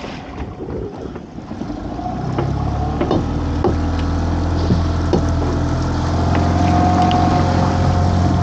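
A small boat's engine picks up and grows louder about two seconds in, then runs steadily, pulling away after the last pot is dropped. A few sharp knocks sound over it.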